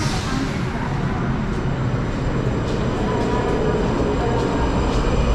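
Brussels metro train starting to pull away from the platform: a low rumble of motors and wheels that slowly grows louder, with a few light clicks.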